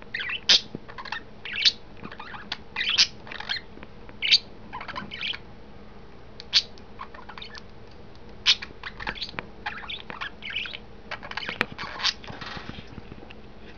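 Pet budgerigars chirping and chattering in their cage: a busy run of short, irregular high chirps and squeaks, some louder than others.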